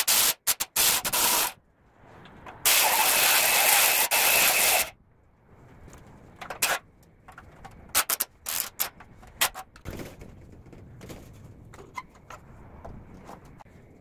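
Cordless impact wrench hammering in two long bursts and then several short ones, undoing the exhaust muffler bolts on a small air-cooled engine.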